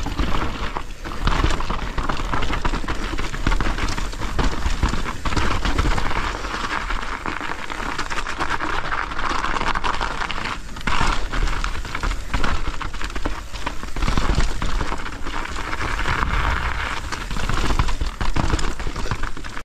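A mountain bike being ridden down a snowy trail: a steady rush of tyre noise with constant clicking and rattling from the bike, over a low rumble of wind on the microphone.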